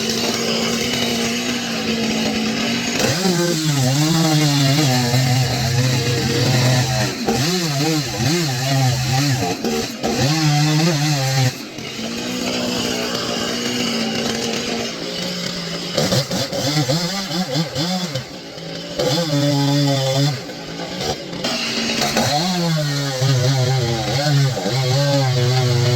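Chainsaw engine running, its revs rising and falling over and over, with stretches held steady at high speed.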